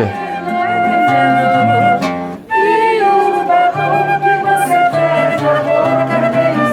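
Instrumental music: a flute plays a melody of held notes over low bass notes, with a brief break about two and a half seconds in.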